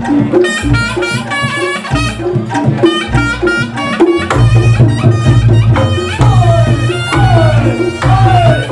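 Reog Ponorogo gamelan (tabuhan reog) playing: kendang drums beating a fast rhythm under a reedy slompret melody, with deep gong tones. From about the middle the slompret bends its notes in sliding glides.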